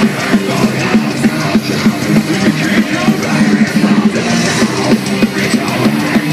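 Heavy metal band playing live through a festival PA: loud distorted guitars over a steady, driving drum beat.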